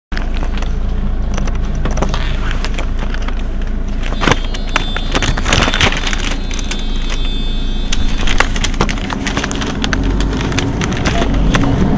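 Mercedes-Benz Citaro city bus engine idling at a stop, a steady low hum heard from behind the bus, with frequent short sharp crackles over it.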